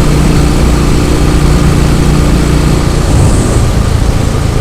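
Royal Enfield Classic 500's single-cylinder engine running steadily, its note shifting slightly about three seconds in.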